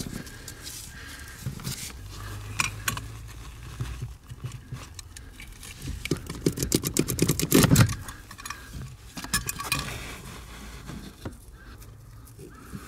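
Handling noise as a new accelerator cable is drawn through the bulkhead by hand under the dashboard: scattered clicks, scrapes and rustling, with a fast rattling run of clicks a little past the middle that is the loudest part.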